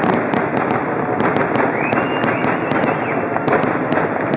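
Aerial fireworks finale: a dense, continuous barrage of bangs and crackling shell bursts, with a few whistles rising through it.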